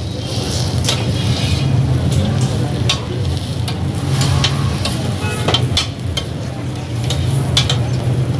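Food sizzling on a flat griddle, with sharp irregular metal clicks and taps of a spatula working the hot plate, over a steady low hum.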